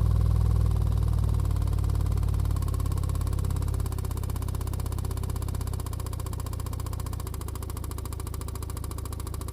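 A 15-inch NVX VCW dual 2-ohm subwoofer playing a low bass test tone that steps down in loudness several times. A fast, even clicking rattle rides on the tone and grows more prominent in the second half: the loud clicking fault the owner cannot trace, which sounds like something vibrating.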